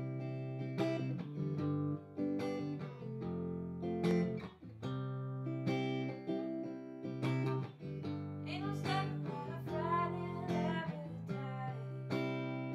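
Clean-toned Fender Telecaster electric guitar picking a slow chord progression, a new chord struck every second or so, with a wavering melody line rising over it in the middle.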